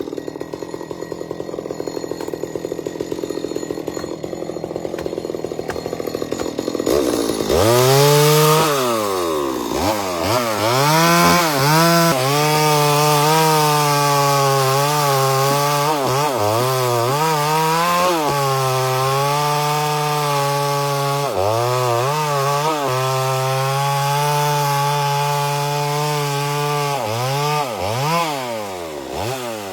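Chainsaw engine running hard for the whole stretch. For the first seven seconds or so the sound is steadier and lower. After that the engine runs at high revs, its pitch dipping and climbing back again and again.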